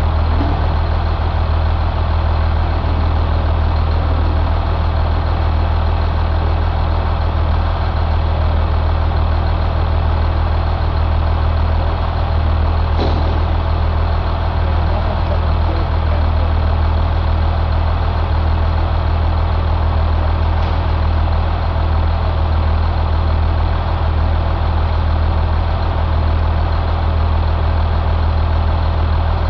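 Caterpillar C7 inline-six diesel engine idling steadily, a constant low hum with no revving. A faint click comes about halfway through.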